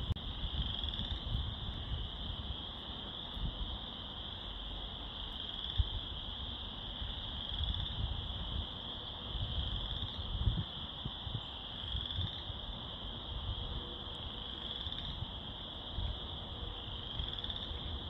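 Chorus of tree frogs calling steadily, many high-pitched calls blending into one continuous ringing drone, with individual rising calls standing out every couple of seconds. A low, irregular rumble runs underneath.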